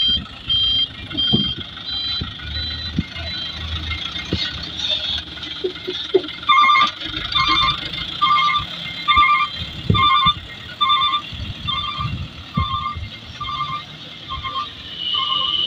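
Hino 300 dump truck backing up under load: its engine runs low with a few knocks, and from about six seconds in its reversing alarm beeps steadily, roughly once every three quarters of a second.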